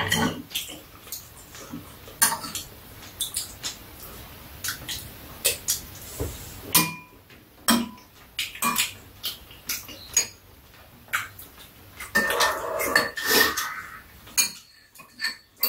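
Metal spoons and chopsticks clinking and scraping against bowls while eating: scattered sharp clinks, busier for a couple of seconds near the end.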